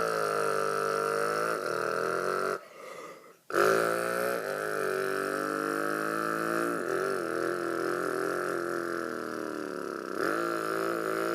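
A person's voice imitating a V8 engine, a low throaty pitched drone with small dips in pitch. It breaks off for about a second near three seconds in, then starts again.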